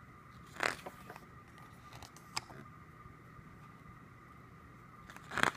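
Pages of a glossy K-pop album photobook being turned by hand: a short paper swish about half a second in, a light tick around two seconds, and a louder swish near the end.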